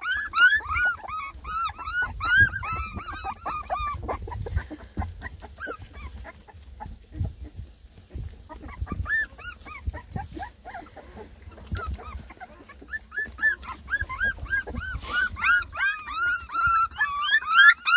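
A litter of three-and-a-half-week-old beagle puppies whining and crying, many short high-pitched arching cries overlapping one another: fussy, complaining puppies. The crying thins out about six seconds in and picks up again about three seconds later, busiest near the end.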